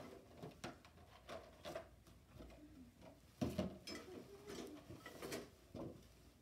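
Black plastic trash bag rustling and crinkling in short bursts as clown shoes are pulled out of it, with a heavier thump about three and a half seconds in.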